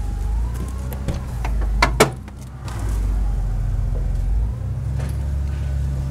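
Ford 5.4L Triton V8 of a 1997 Econoline E250 van idling steadily. Two sharp latch clicks about two seconds in as the passenger door is opened.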